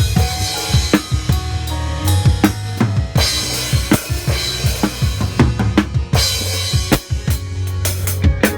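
A band playing live at a sound check: a drum kit with kick, snare and cymbal crashes over a sustained bass line and other pitched instruments.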